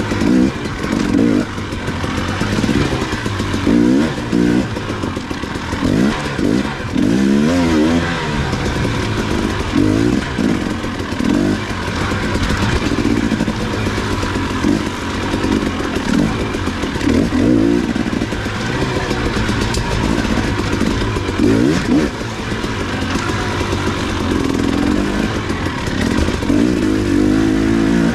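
Dirt bike engine being ridden off-road, its pitch rising and falling again and again as the throttle is opened and closed.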